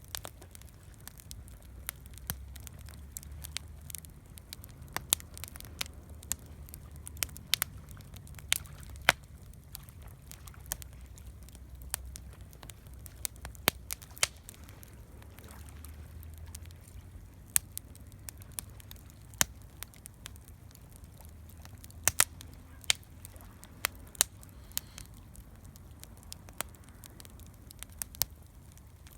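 Wood campfire crackling, with sharp pops at irregular intervals over a low, steady rumble.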